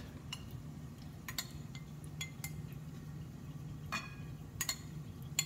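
Metal spoon clinking against a ceramic bowl and plate while ladling red wine reduction: about ten light, irregularly spaced clinks, some ringing briefly. A steady low hum runs underneath.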